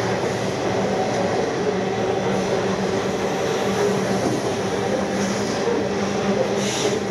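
Freight train of covered hopper wagons rolling past: a steady, continuous rumble and clatter of wheels on rail with a low steady hum underneath.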